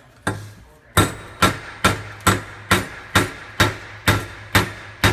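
Steel claw hammer striking drawn-arc welded 3/8-inch steel studs on a steel pipe, bending them over to test the welds. About two sharp, ringing metal blows a second after a first single blow shortly in.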